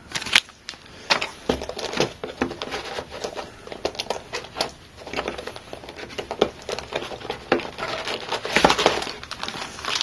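Plastic accessory bags crinkling and rustling in short bursts as they are handled, with a denser stretch of crinkling near the end.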